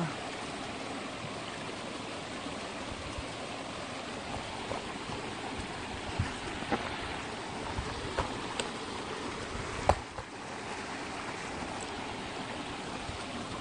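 Steady rush of rain-fed water running into a reservoir at an inlet. A few faint clicks and knocks come in its middle stretch, the sharpest about ten seconds in.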